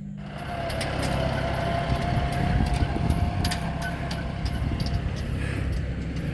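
A motor vehicle's engine running steadily, with a thin wavering whine over the rumble and scattered clicks and rattles.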